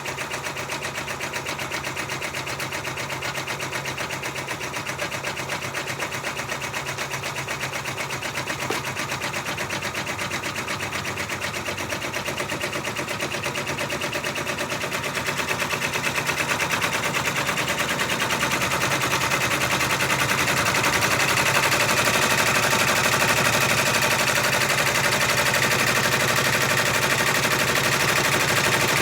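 Six-needle embroidery machine stitching out a monogram at speed, a fast steady clatter of needle strokes that grows louder about halfway through.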